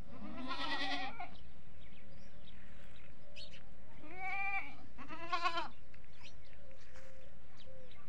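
Desi goats bleating three times: one bleat about a second in, then two more in quick succession around the middle.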